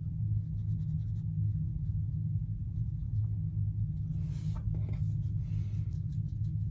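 Soft scratching of a water brush's bristles stroking paint onto watercolour paper, over a steady low hum. About four seconds in, a paper towel rustles as the brush is wiped clean.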